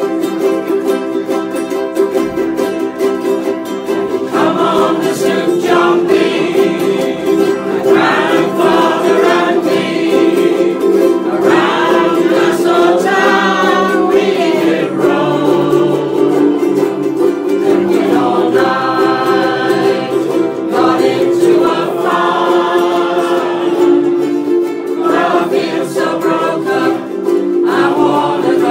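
A group of ukuleles strumming chords together, with several voices joining in song about four seconds in.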